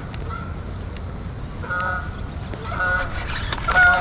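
Geese honking, about four short calls roughly a second apart, the last one the loudest, over a steady low background rush.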